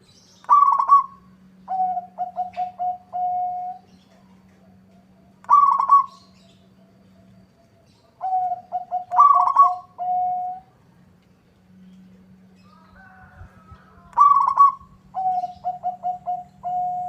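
Zebra dove (perkutut) singing: about four phrases, each a loud higher note followed by a quick stuttering run of lower coos that ends in a longer held coo.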